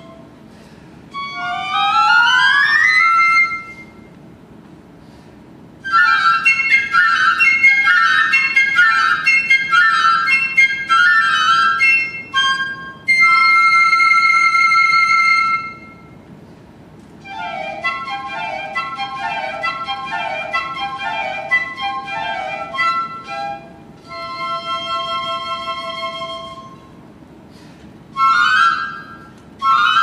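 Two piccolos playing in close duet: a quick rising run, bursts of rapid fluttering repeated notes, and long held high notes, in phrases separated by short pauses.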